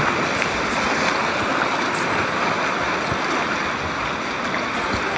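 River water rushing steadily around an inner tube riding the current, an even, unbroken rush.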